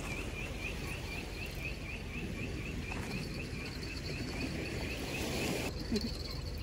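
Insect chirping steadily, about four to five chirps a second, stopping near the end, over a steady low rumble.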